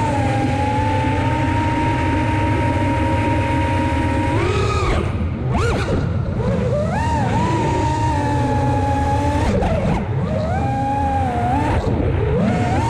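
FPV racing quadcopter's brushless motors and propellers whining at a steady pitch, then swooping up and down several times as the throttle is punched and chopped, from about four seconds in onward.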